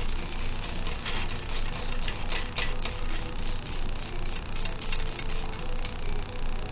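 A small motor running with a steady hum, with scattered light clicks over it.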